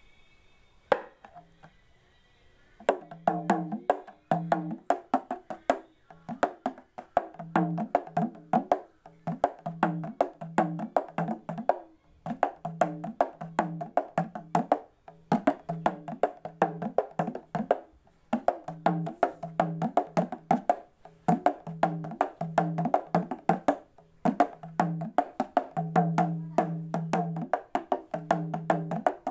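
Dogor, an Assamese folk drum with a monitor-lizard-skin head on a jackfruit-wood shell, hand-played in fast rhythmic strokes, each with a short pitched ring. After a single tap about a second in, the playing starts about three seconds in and goes on in phrases broken by brief pauses.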